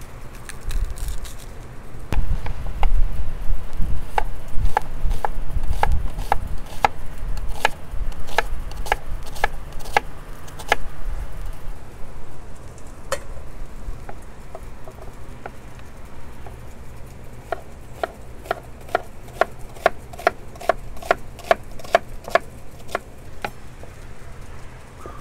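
Knife slicing an onion thin on a cutting board: crisp knife taps on the board at about two a second, in two runs with a pause in the middle, and heavier thumps in the first few seconds.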